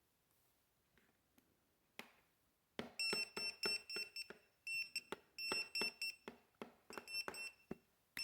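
An electronic alarm beeping: a high-pitched tone pulsing in rapid, uneven bursts that starts about three seconds in, after a few faint clicks.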